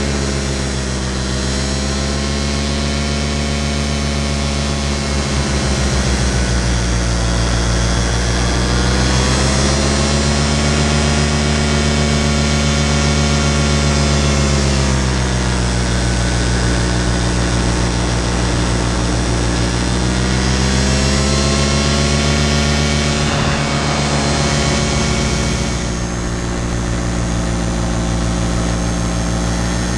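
Paramotor engine and propeller running in flight, heard close up from the harness. Its pitch drops and rises several times as the throttle is eased and opened again.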